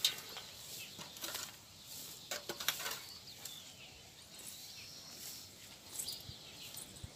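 Dry straw and twigs rustling and crackling in short, scattered bursts, with a cluster of sharper crackles about two to three seconds in.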